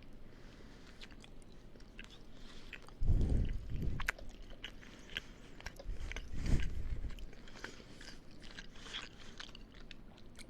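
Close-up chewing and biting of a burrito, full of short wet mouth clicks. Two loud low thumps come about three seconds in and again about six and a half seconds in.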